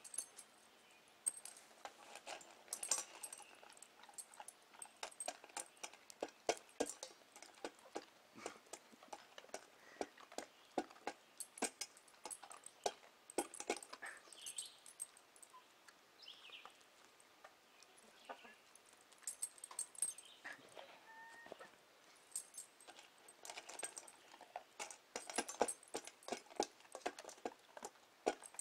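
A dog and a hen feeding from a stainless steel bowl of dry kibble: rapid, irregular clicks and crunches of kibble being chewed and pecked against the metal, with a few short chicken calls.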